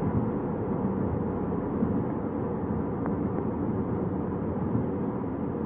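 DJI FPV drone in flight: a steady, loud rushing noise of propellers and wind, with no clear motor whine.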